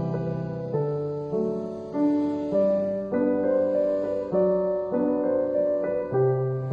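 Background music: a piano piece with chords struck at an even pace, a new one about every half second or so, each ringing on and fading until the next.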